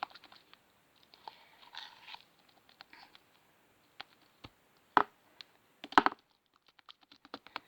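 Hands kneading and stretching homemade glue slime, giving soft sticky crackles and sharp clicking pops, with a quick run of small clicks near the end.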